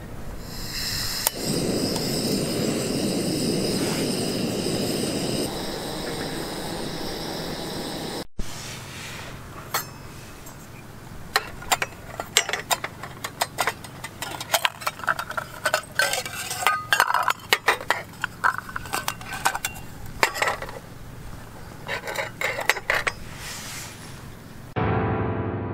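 A camping gas stove's burner running with a steady rush under a stainless sierra cup of water for the first several seconds. Then stainless steel cups and a pot clink and knock against each other many times as they are nested together for packing away.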